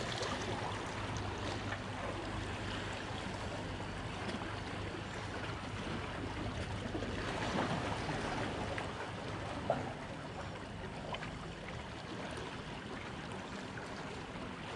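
Sea water washing against the shore: a steady wash that swells a little about halfway through, with one short knock a couple of seconds later.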